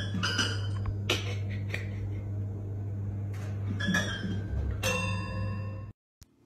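Toy piano keys pressed by a cat's paw: a handful of scattered, plinking notes over a steady low hum. The sound cuts off abruptly about six seconds in.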